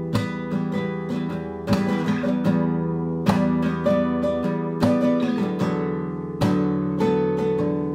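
Acoustic guitar strumming ringing chords, with a strong downstroke about every second and a half and lighter strokes between. It is a rough voice-memo recording made on an iPhone.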